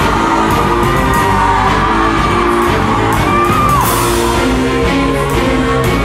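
Music accompanying a group dance: a sliding melody line over a changing accompaniment of held notes, with light, quick percussion, playing steadily throughout.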